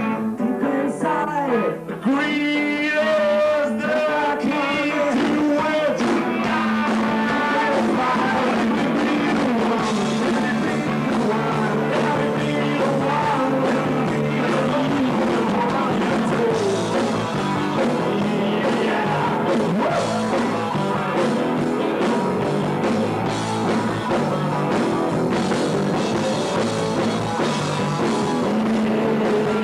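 Rock band playing live, electric guitar over bass and drums, with long wavering held notes in the first several seconds.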